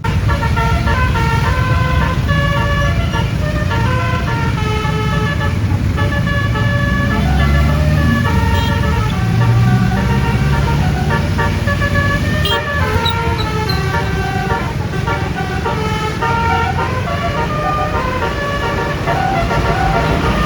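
Bus 'telolet basuri' multi-tone horn playing a long, fast melody of stepped notes, over a low rumble.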